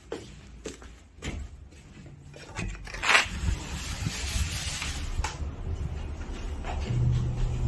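Footsteps and handling noise, then a sliding glass balcony door slid open about three seconds in with a sharp scrape and a short hiss. A steady low hum of distant city traffic comes in near the end.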